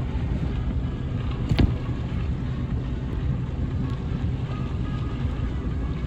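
Steady low rumble with one sharp knock about a second and a half in.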